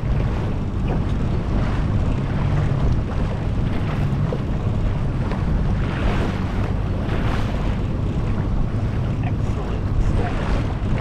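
Small motorboat's engine running steadily underway, with wind buffeting the microphone and water washing past the hull.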